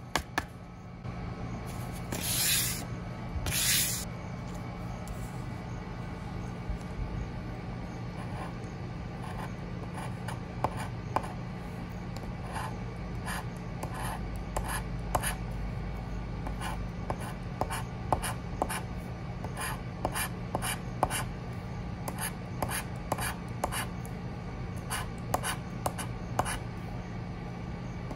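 A pointed metal tool scraping the silver latex coating off a paper scratch-off lottery ticket in many short, rapid strokes. A few seconds in there are two louder hissing sounds before the steady scratching takes over.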